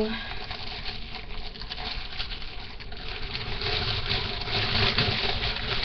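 Rustling and crackling handling noise, with many small irregular crackles, as clothes are moved about and put away.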